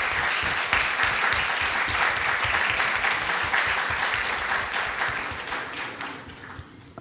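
Applause from an audience and the panel, many hands clapping steadily, then dying away over the last couple of seconds.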